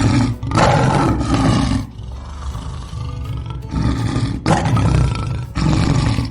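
Lion roaring in a series of loud, rough calls, with a quieter stretch in the middle and short breaks between them.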